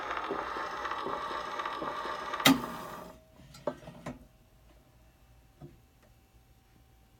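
Edison Diamond Disc phonograph playing the acoustic recording of a 1920s dance orchestra, with surface hiss; a sharp stroke about two and a half seconds in is the loudest sound. The music stops about three seconds in, leaving a few light clicks.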